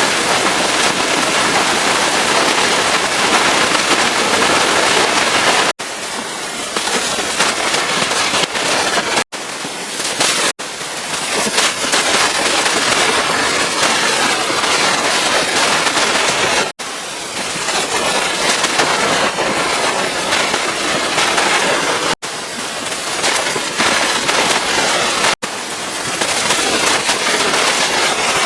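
Pressure washer spray hissing against the truck's surfaces, with several abrupt breaks where the sound cuts off for an instant and starts again at a slightly different level.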